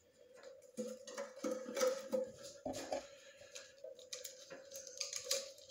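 Hands fastening a plastic zip tie around an ignition sensor wire on a small engine: scattered soft clicks and rustles of plastic and wire being handled, over a faint steady hum.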